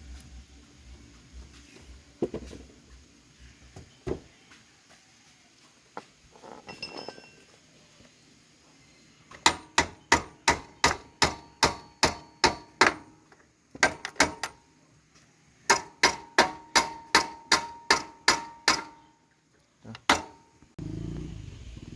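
Hammer striking metal in two quick runs of ringing blows, about three a second, with a pause between them. Near the end a low steady hum begins.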